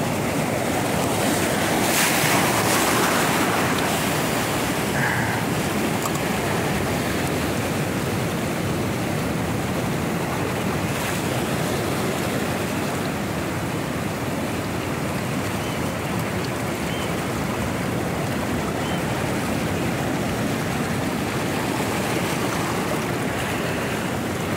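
Sea surf breaking and washing over shoreline rocks in a steady rush, with a bigger wave surging in about two seconds in.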